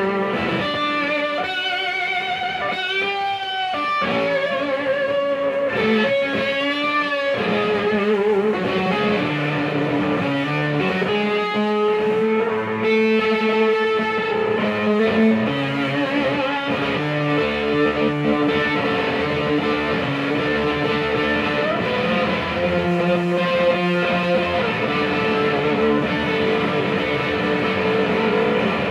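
Rock band playing live: an electric guitar lead with bent, wavering notes over bass guitar and drums, no singing.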